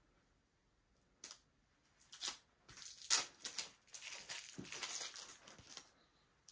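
Plastic protective wrap being peeled and crinkled off a new golf iron's head: a sharp rustle about a second in, then a few seconds of crinkling and tearing that stops shortly before the end.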